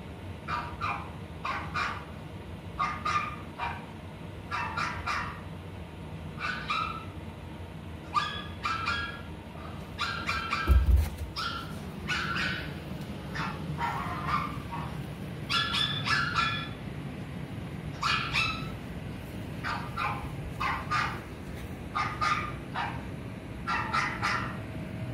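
Dog barking: short barks in quick runs of two to four, repeated throughout. A loud thump about eleven seconds in.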